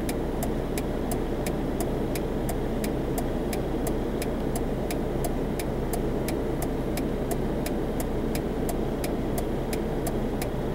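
Car cabin noise while driving: a steady engine and road rumble, with a fast, even ticking of about four clicks a second.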